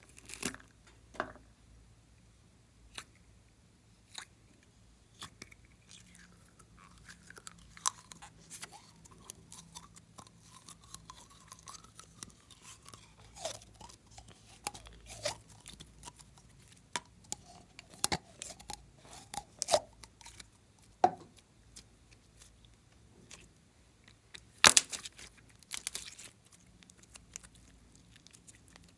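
Slime being squished and pulled by hand: irregular sticky pops, crackles and squelches, with the loudest pops about 25 seconds in.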